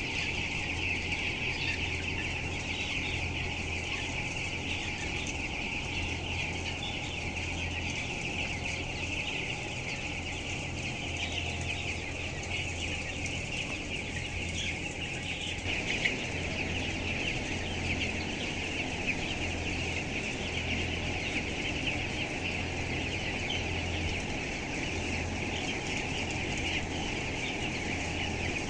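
A large flock of broiler chickens peeping and clucking all at once in a dense, continuous chatter, with a low steady hum underneath.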